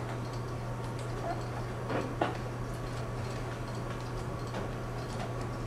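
Steady low hum with faint scattered clicks, and one sharper click a little over two seconds in.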